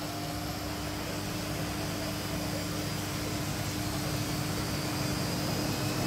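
Front-loading washing machine starting its spin cycle: the drum runs with a steady hum that grows slowly louder.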